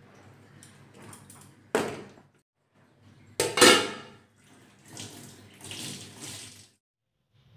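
Washing up at a steel kitchen sink: tap water running, with two sudden metallic knocks of an aluminium saucepan and its lid being handled, the second the loudest.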